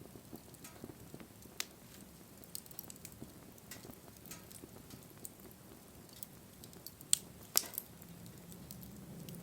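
Wood bonfire burning, with scattered sharp crackles and pops from the burning wood; two louder pops come close together about seven and a half seconds in. A low rush of flame grows toward the end.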